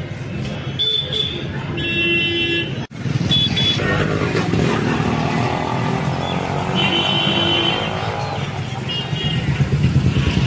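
Town street traffic: motorcycle and other vehicle engines running, with vehicle horns honking several times in short blasts.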